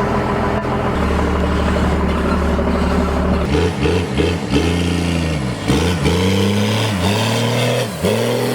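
First-generation Cummins diesel truck engine running steadily at first, then revving up and falling back over and over, about once a second.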